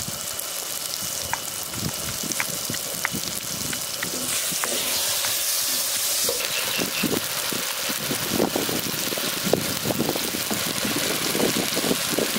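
Ginger and garlic being pounded in a stone mortar with a stone pestle: scattered knocks, coming thicker and heavier in the second half, over a steady hiss.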